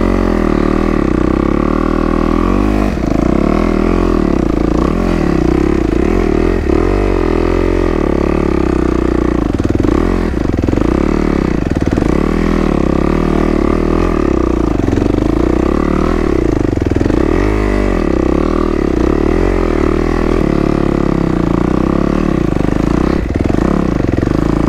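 Kawasaki KX250 dirt bike engine revving up and down under load through a steep, rocky climb, with a few knocks along the way.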